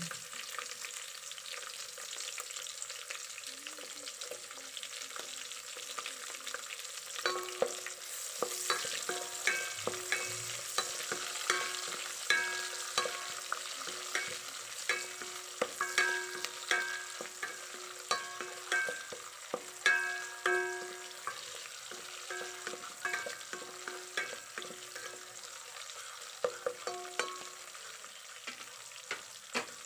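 Chopped garlic and onions sizzling in hot oil in a pot, with a steady hiss. From about seven seconds in, a utensil stirring them knocks against the pot again and again, each knock ringing briefly, until near the end.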